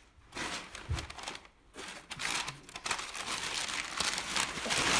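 Brown kraft packing paper being crumpled and rustled close to the microphone: a first stretch of crinkling, a short lull about a second and a half in, then steady crinkling.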